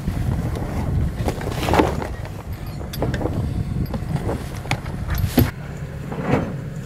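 Steady low rumble of a sailboat under way, with wind on the microphone and a few short flaps or knocks, the sharpest about five seconds in.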